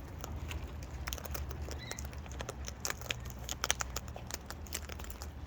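Small birds pecking seed from a hand: quick, irregular beak taps and clicks, with a brief faint chirp about two seconds in.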